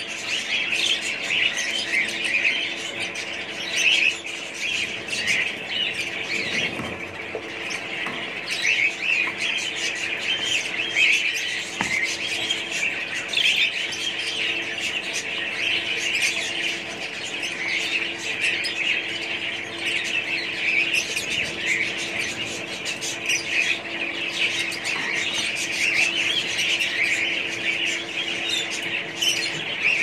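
Dense, unbroken chirping and squawking from many caged birds, with a steady low hum underneath.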